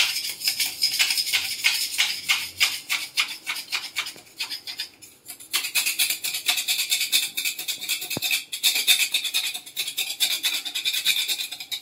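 A hand brush scrubbing ceramic wall tiles and grout lines in quick back-and-forth strokes, about four to five a second, with a brief pause about five seconds in.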